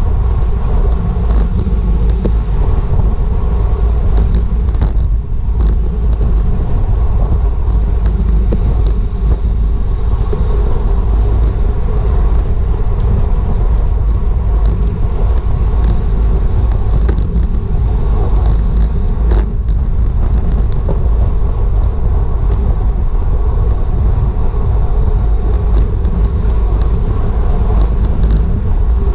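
Wind rushing over the microphone of a camera on a racing bicycle at speed: a steady low rumble, with scattered light clicks and ticks.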